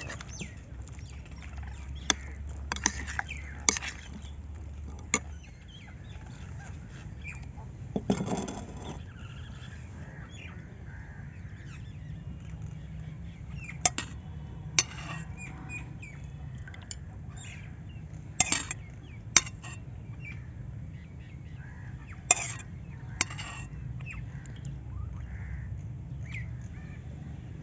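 Metal spoon clinking and scraping against a bowl in sharp, scattered clicks as chicken pieces are stirred and yogurt is spooned in. Birds call in the background over a steady low hum.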